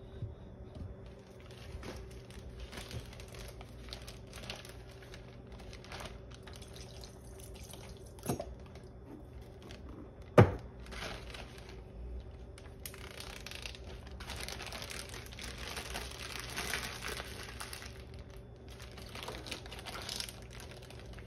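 Plastic zip-top sandwich bag crinkling as it is handled while Italian dressing is poured into it. A sharp knock comes about ten seconds in, and the crinkling grows denser in the second half as the bag is worked closed.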